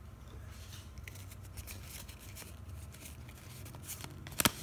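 Faint crinkling and rustling of a foil trading-card booster pack being opened and handled, with small crackles throughout and one sharp click near the end.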